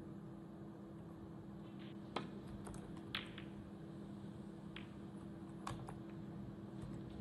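Snooker balls and cue clicking on the table: four sharp single clicks a second or more apart, the first the loudest, over a faint steady low hum.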